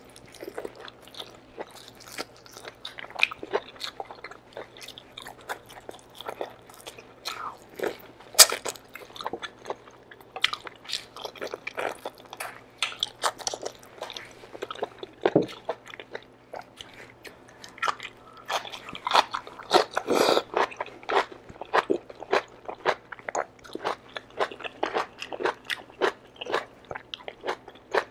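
Close-miked mouth sounds of a person eating stewed oxtail and beef shank kare-kare by hand: chewing and biting meat off the bone, with many quick, wet smacks and clicks, busiest about two-thirds of the way through.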